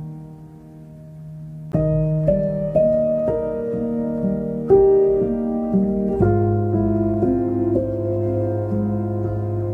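Piano music: a held chord dies away, then a new phrase of struck notes begins a couple of seconds in.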